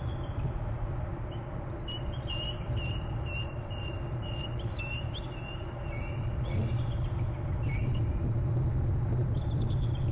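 Bald eagle calling: a run of short, high chirping notes repeated evenly for about three seconds, then a few lower chirps. A steady low rumble runs underneath.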